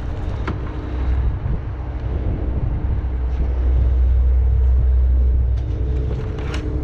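Steady low drone of a steel fishing boat's engine, with a couple of sharp knocks, one about half a second in and another near the end.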